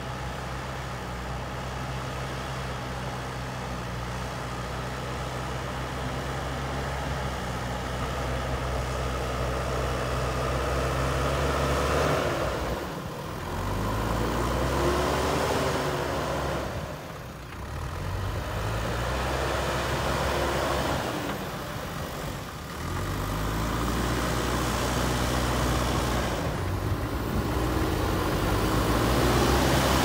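JCB 3DX backhoe loader's diesel engine running as the front loader bucket works soil. The engine holds steady for about the first twelve seconds, then the revs drop and climb back up three times, and it grows louder toward the end.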